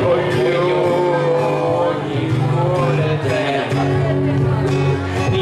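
A man singing a slow song to a strummed acoustic guitar.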